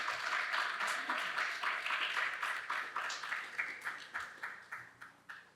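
Audience applauding. The clapping thins out and dies away, with only a few separate claps left near the end.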